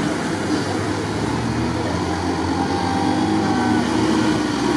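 Off-road 4x4 engines running hard and revving as the vehicles push through a muddy water crossing, with mud and water splashing.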